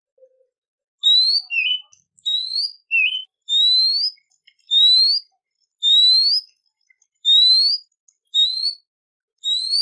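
A songbird's whistled song: a series of loud rising whistles, about one a second, some followed by a short lower note. It starts about a second in.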